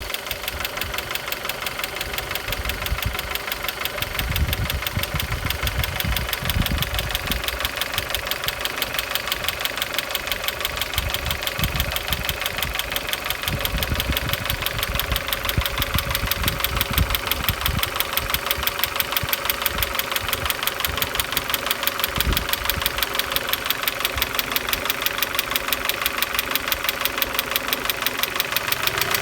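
Opel X20XEV 2.0-litre 16-valve four-cylinder engine idling with a rapid, even knock in time with its running, which the owner hears both cold and hot.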